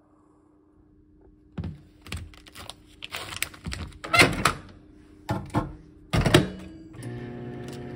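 A countertop microwave oven being loaded: a string of knocks and plastic clatters as the instant-rice tray is handled and the door-release button pops the door open, then a solid thump as the door is shut about six seconds in. Near the end the microwave starts, running with a steady hum.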